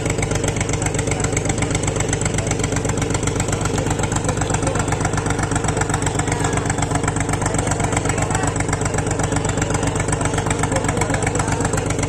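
A boat engine running steadily with a rapid, even chugging.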